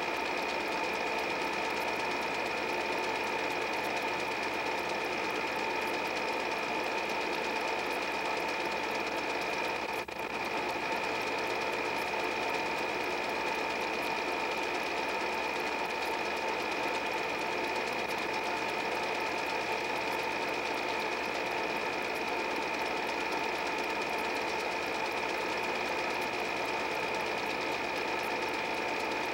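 8 mm film projector running: a steady mechanical whir and clatter with a high whine on top. There is a brief dip about ten seconds in.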